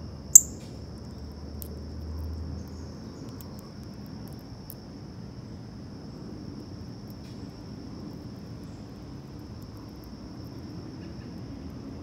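A steady, high-pitched insect chorus runs on without a break. About half a second in comes one short, sharp, high bird chirp, the loudest sound. A few faint chirps or clicks follow over the next few seconds.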